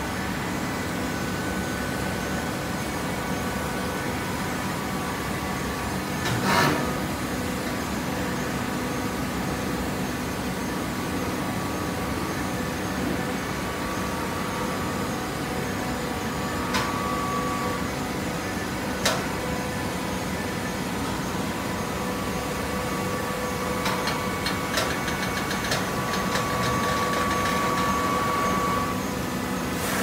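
Automatic horizontal hydraulic baler running: a steady hum from its hydraulic power unit, broken by a few sharp metallic clanks, one about six seconds in and two more between 16 and 19 seconds. Near the end a run of rapid clicks sets in, and a steady whine gets louder, then stops a second before the end.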